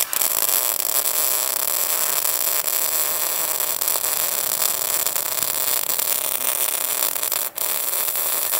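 MIG welding arc from a Mig250e inverter welder in smart mode: a steady hiss, broken once briefly about seven and a half seconds in. The setting is being turned up until the arc sounds smooth, the sign of a well-tuned arc, and it is judged smooth by the end.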